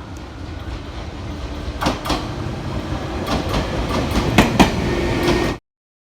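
Train running: a steady rumble that grows louder, with sharp clacks about two seconds in and a cluster of clacks near the end, then cuts off abruptly.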